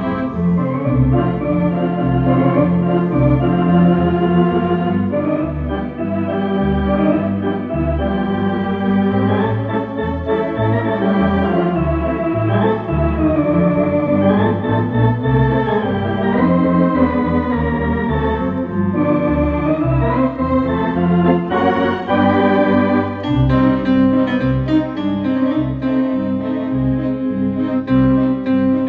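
Technics G100 electronic home organ played: a melody and chords over a regular bass line, in a popular-song medley.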